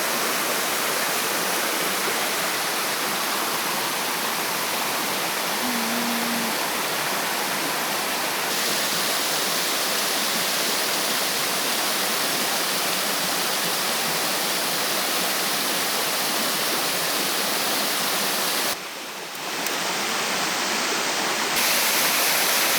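Waterfall pouring: a steady, even rush of falling water. The rush drops briefly about three-quarters of the way through, then carries on.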